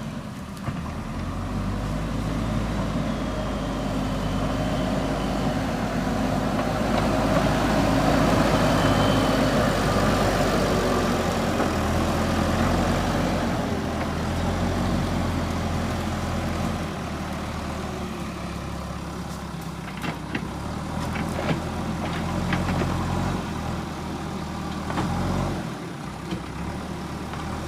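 JCB 3DX backhoe loader's diesel engine running steadily, working harder for several seconds in the first half and then easing back. A few short sharp knocks come in the later part.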